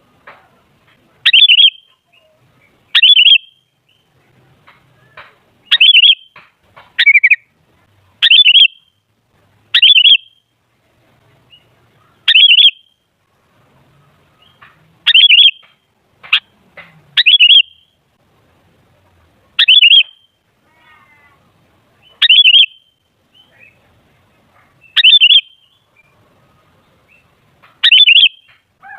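Sooty-headed bulbul calling: a short, loud, clear call repeated about every two to three seconds, now and then in quick pairs.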